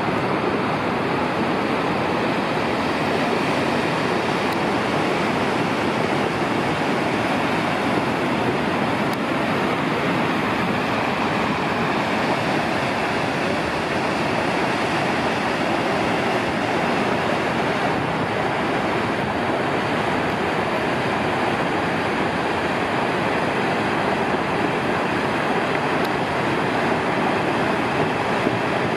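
Steady rushing roar of a large waterfall, the Salto Grande on the Paine River, with no change in level.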